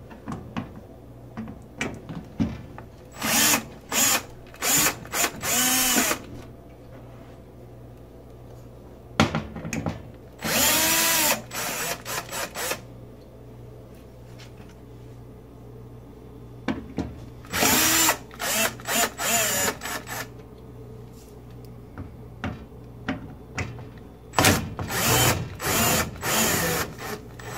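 An electric screwdriver backs out four Phillips screws. It comes in four spells of short motor whirs, several seconds apart, one spell per screw.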